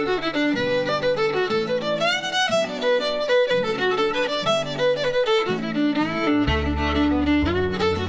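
Instrumental intro music: a melody of changing notes over a lower bass accompaniment, without voice.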